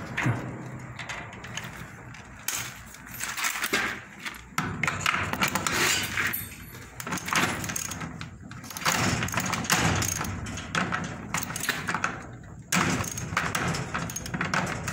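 Irregular clicks and knocks of a socket wrench tightening the bolt on a cable lug on a panel busbar, with tool and handling noise.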